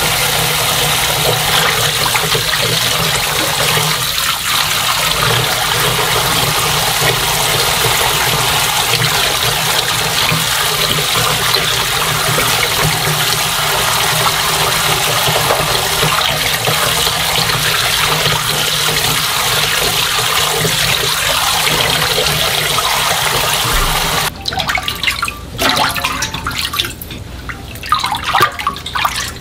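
Kitchen tap running steadily into a bowl of water as salted young radish greens are rinsed. The tap cuts off about 24 seconds in, leaving scattered splashes and drips.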